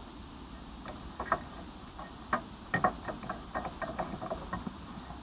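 Hand tools clicking and clinking on the metal exhaust as it is unbolted for removal: about a dozen short, irregular metallic ticks, most of them bunched together from a little past halfway.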